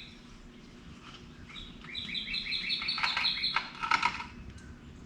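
A bird singing a rapid run of short repeated chirps, about five a second, for roughly two seconds in the middle.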